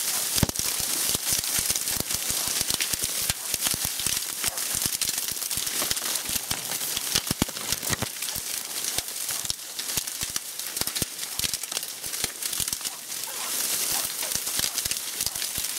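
Dry reed stalks rustling and crackling close to the microphone as someone pushes through a dense reed thicket, a continuous run of many sharp snaps and clicks.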